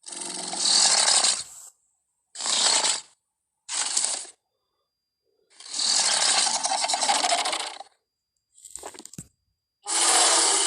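Designed Carnotaurus creature vocalisations: five separate harsh, raspy growls and snarls of varying length, the longest about two seconds, cut apart by silence, with a fainter short clicking rattle between the last two.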